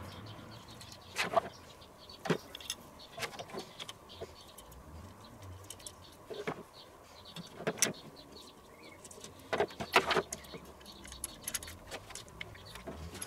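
Metal stand pieces of a mini kamado grill clinking and knocking as they are handled and fitted together, in scattered short clicks with a few sharper knocks.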